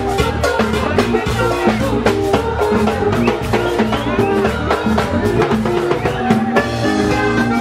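Live música típica band: a button accordion playing the melody over a drum kit and hand percussion, loud and continuous with a steady dance beat.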